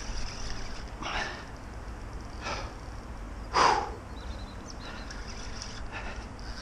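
An angler breathing hard from the strain of fighting a large wels catfish on the rod: three short, sharp exhales about a second apart, the third the loudest, over a steady low rumble.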